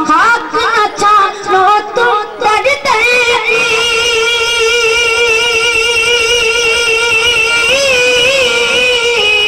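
A boy singing a naat: a few short, sliding phrases, then one long held note with small turns in pitch near the end.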